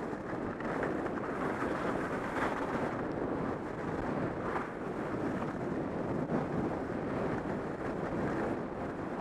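Wind rushing over the camera's microphone as a skier descends, mixed with the steady hiss of skis running over groomed corduroy snow.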